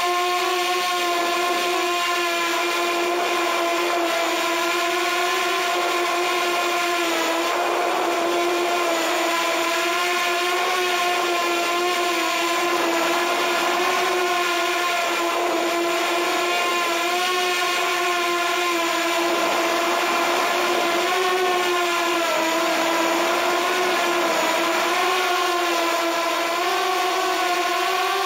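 Walkera F210 3D racing quadcopter's brushless motors and propellers whining steadily in flight, heard from a camera mounted on the drone itself; the pitch wavers slightly up and down with the throttle.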